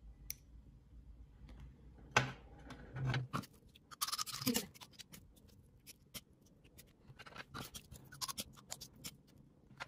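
A metal spoon scraping and clicking against a snail shell and a ceramic plate as chopped, seasoned snail meat is scooped up and pressed into the shell. Irregular short scrapes and taps, louder from about two to five seconds in, with a run of small clicks near the end.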